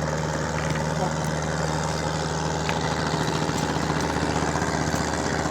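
An engine running steadily at an even idle, a constant low hum, with a few faint clicks over it.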